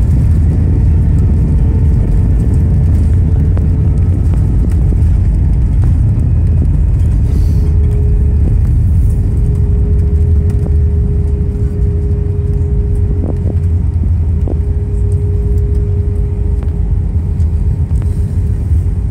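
Cabin noise of an Airbus A320 rolling along the runway after landing: a loud, steady low rumble from the wheels and engines, with a steady whine on top.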